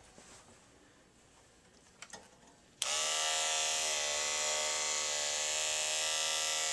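Conair HC240KD electric hair clippers: a few faint handling clicks, then the clippers switch on just under three seconds in and run with a steady buzz. They keep running without cutting out, a sign that the repaired power cord now holds a steady connection.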